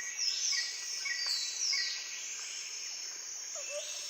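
Birds and insects: a steady high insect drone with short bird chirps about twice a second and several falling whistled calls. Near the end, low short bird notes start repeating.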